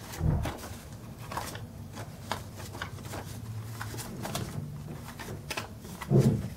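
Paper banknotes and a paper envelope rustling and crinkling as cash is handled and slipped into the envelope, with short irregular paper clicks and rustles throughout.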